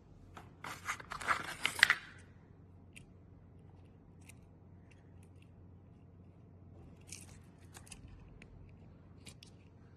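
Small metal pocket-knife tools being handled: a quick flurry of clicks and scraping about a second in, then scattered single light clicks.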